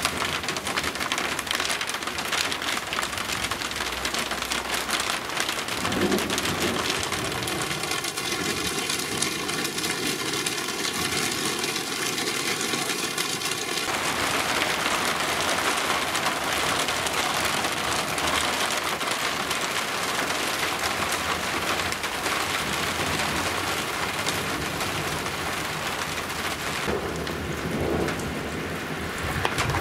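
Heavy rain pouring down in a thunderstorm cloudburst, a steady dense hiss of rain on surfaces. Low rumbles, likely thunder, come about six seconds in and again near the end.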